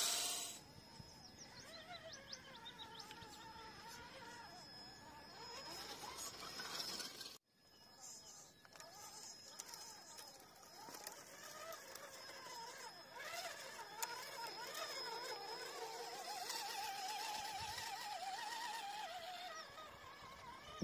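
Electric motor and gearbox whine of a Carisma Coyote scale RC crawler driving slowly through shallow water, the pitch rising and falling with the throttle. The sound drops out briefly about seven seconds in.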